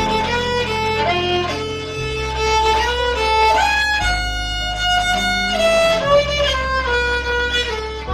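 Violin playing a lively melody with slides between some notes, over low sustained bass notes that change about every two seconds.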